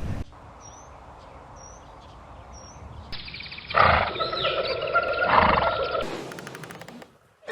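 Three short, high bird chirps, then a loud, drawn-out call from a large wild animal lasting about two seconds, which fades away near the end.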